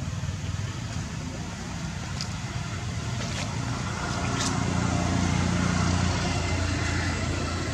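Low engine rumble of a passing motor vehicle, growing louder about four seconds in and easing off near the end.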